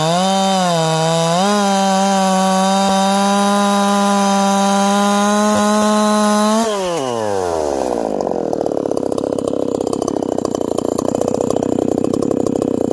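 Ported Echo CS-4910 two-stroke chainsaw cutting through a log at full throttle, revs holding steady under load. About two-thirds of the way in the throttle is released and the engine winds down to idle, each firing pulse audible.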